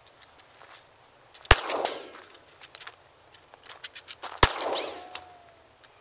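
Two 10mm pistol shots from a Glock 20SF, about three seconds apart, each followed by a short echo.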